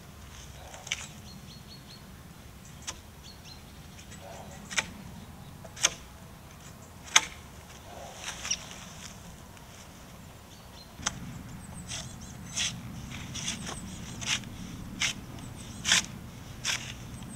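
Debarking tool striking and prying bark off a robinia log: sharp knocks, a second or two apart at first, the loudest about halfway through, then coming more often, about one to two a second, in the second half. A low steady hum comes in at the same point.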